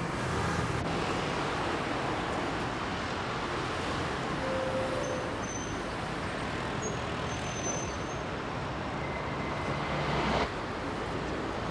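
Steady road traffic noise: a continuous rumble of passing vehicles with no single event standing out, dropping slightly quieter about ten and a half seconds in.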